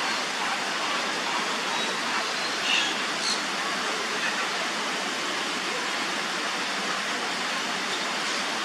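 Steady rushing of falling water, an even hiss with no rhythm, with a few brief high chirps about three seconds in.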